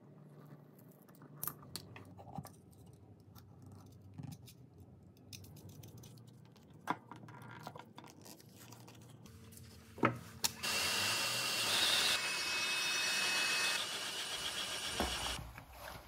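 Small clicks and scrapes as a screwdriver pries the emblem out of a leather-covered shift knob and hands turn the knob over. About ten seconds in there is a sharp click, then a power tool runs loudly and steadily with a high whine for about five seconds before cutting off.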